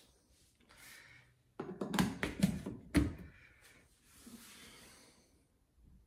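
A quick run of sharp clicks and light knocks, about a second and a half long, from an African grey parrot on a chrome wire basket shelf. Soft breathy rustling comes before and after it.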